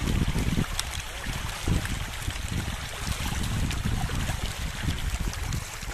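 Gusts of wind on the microphone over a steady rushing of water: tilapia splashing and churning at the pond surface as they feed.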